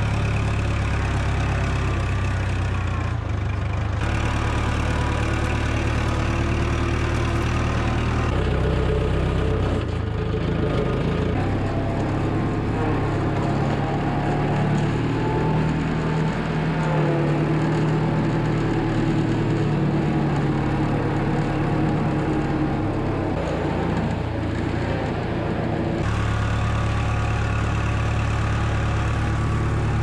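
Old tractor's engine running steadily while it pushes a manure scraper along a concrete barn alley. The engine note changes about 8 seconds in and returns to its first note near the end.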